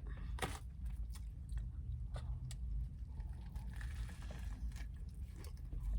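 Chewing a big mouthful of burger close to the microphone: a run of irregular short mouth clicks.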